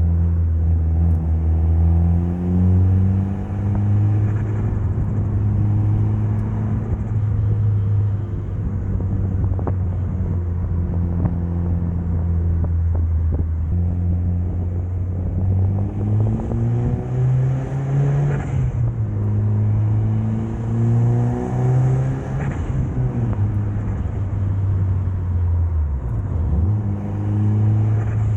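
Mitsubishi Lancer Evolution's turbocharged 4G63 inline-four engine running under way, its pitch mostly steady. About halfway through, the engine climbs twice under acceleration, and each climb drops off sharply. There is a brief dip in revs near the end.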